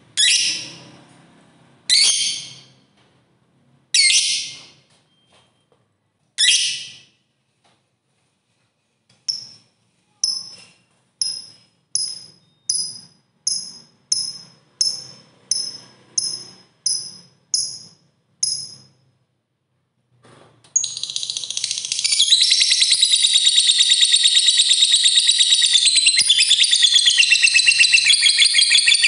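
Lovebird calling: four loud, high, harsh single calls about two seconds apart, then a run of short sharp chirps at about one and a half a second, then from about twenty seconds in an unbroken rapid trill. The long trill is the 'ngekek panjang' chatter prized in a fighter lovebird.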